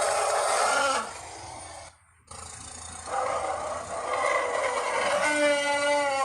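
Woolly mammoth sound effect: a roaring call that breaks off about a second in, then after a brief silent gap a longer roar that ends in a held, trumpet-like note.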